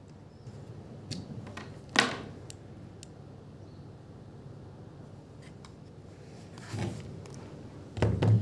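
Handling noise: scattered sharp clicks and knocks, the loudest about two seconds in, then a cluster of bumps and rustling near the end.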